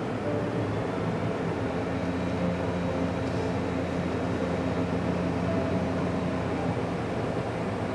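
Steady road and engine noise of a car driving along at speed, heard inside the cabin, with a low hum holding a steady pitch.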